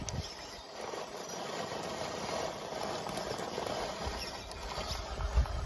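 Radio-controlled rock crawler's electric motor and gearbox whirring steadily as the truck crawls over rock, with low rumbles and a thump near the end.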